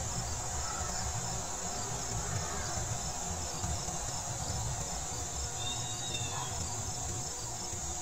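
Outdoor insect chorus, crickets trilling in a steady high-pitched drone, over a low rumble. A short chirp comes about six seconds in.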